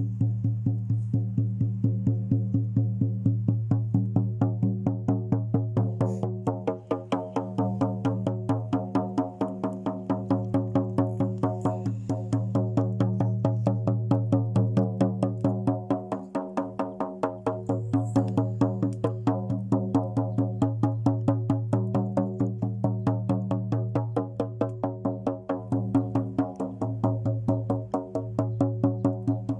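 Music: a low, steady drone with held tones above it, over a fast, even tapping beat.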